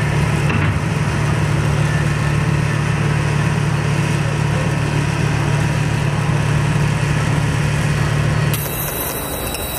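A loud, steady low drone that cuts off abruptly about a second before the end, leaving a thinner hiss.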